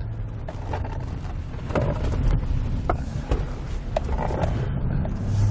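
Heavy-duty pickup truck towing a fifth-wheel trailer through slalom turns: a steady low road and drivetrain rumble, with scattered short knocks and rattles as the loaded rig sways.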